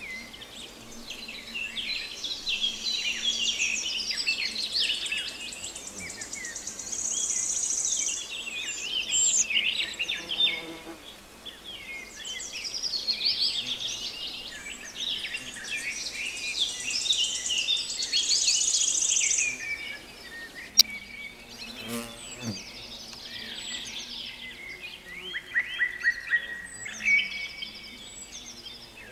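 Songbirds singing in a dense chorus of chirps and trills, with a high insect buzz that swells and fades several times. Twice a lower buzz, like a fly passing close, comes and goes briefly.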